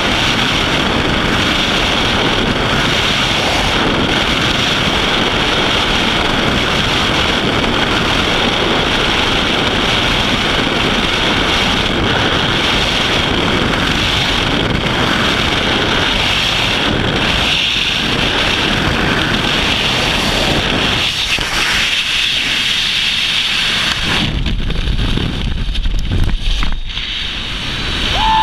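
Freefall wind rushing over the microphone of a skydiver's camera in a loud, steady roar of noise. About 24 seconds in, the noise thins out and becomes a lower rumble.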